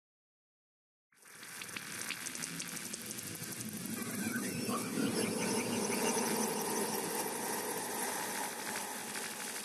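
Crackling, hissing title-card sound effect, starting after about a second of silence and running on steadily.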